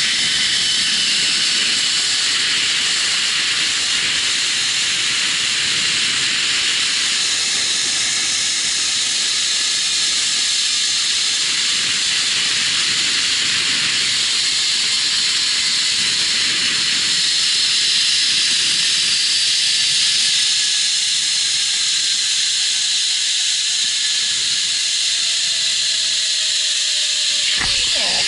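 Zip-line trolley pulleys running along the steel cable at speed: a steady high hiss, with a faint whine that slowly falls in pitch over the last several seconds. A sharp knock comes near the end as the trolley comes in to the landing platform.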